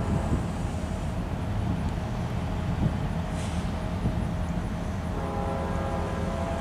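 Distant train horn sounding a faint held chord, which drops away early on and comes back about five seconds in, over a steady low rumble.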